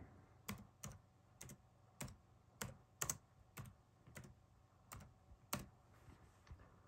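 Computer keyboard keys being typed slowly, one at a time, as a word is entered. About ten faint separate key clicks come at roughly two a second, then fade out near the end.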